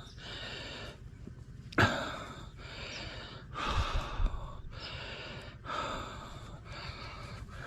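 A man breathing heavily and audibly close to the microphone, about one breath a second, with a sharp knock about two seconds in and low bumps near four seconds.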